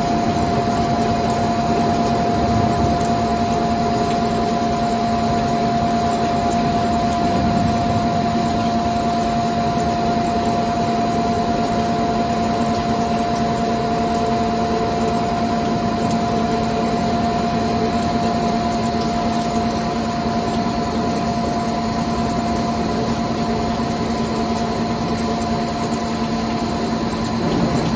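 CNC lathe running, spindle turning the workpiece in the chuck while coolant sprays onto it: a steady machine hum with a higher whine over the hiss of the coolant.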